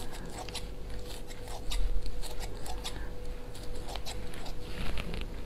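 Kitchen scissors cutting through smoked pork belly: a scattered run of short snips and clicks.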